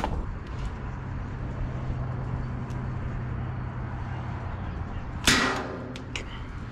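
A fishing rod whips through the air in one sharp swish about five seconds in as a jig is cast, followed by a couple of small clicks. A low steady hum runs under it until then.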